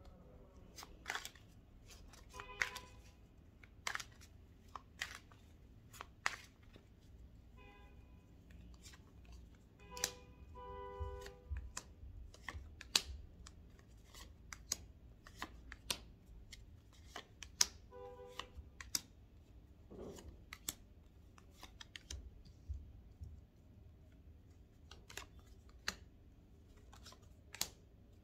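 Tarot cards being handled and laid out, a string of sharp snaps and taps about once a second, over faint background music with a few soft notes.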